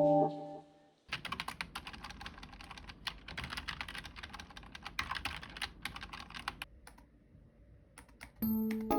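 Typing on a computer keyboard: rapid, uneven key clicks for about five seconds, thinning to a few scattered keystrokes, with background music coming back near the end.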